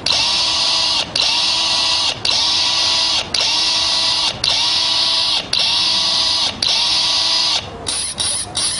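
Machine-like electronic sound effect in a robot-dance soundtrack: a loud hissing whirr with a tone underneath, repeated about once a second with short breaks between. Near the end it switches to shorter, quicker bursts.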